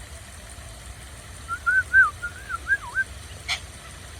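A bird whistles a quick run of six or seven clear, warbling notes that rise and fall, starting about a second and a half in. A single sharp click follows near the end, over a steady low background rumble.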